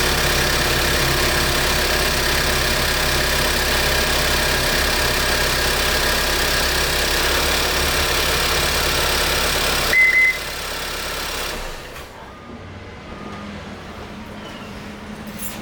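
Lincoln MKZ's 2.0-litre turbocharged four-cylinder engine idling steadily with its new battery in. About ten seconds in there is a short high beep, and soon after the engine sound drops away to a much quieter background.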